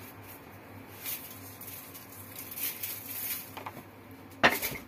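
Salt shaken from a cardboard box onto vegetables heaped on aluminium foil, heard as a few soft patters over a low steady hum. Near the end comes a short, loud rustle.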